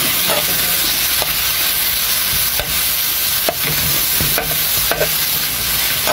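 Vegetables (strips of bell pepper and carrot, with ginger, onion and garlic) sizzling steadily in hot oil in a pan, stir-fried with a metal spoon that knocks and scrapes against the pan every half second or so.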